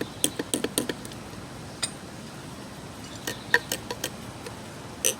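Light metallic clicks and clinks in scattered clusters, as clutch plates are worked out of the clutch pack of a 2016 Toyota Camry's automatic transmission.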